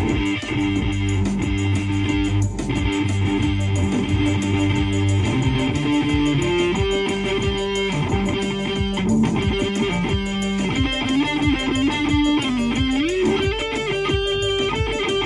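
Electric guitar playing held notes with string bends and wavering pitch. A low held note drops out about five seconds in, and near the end a note bends upward.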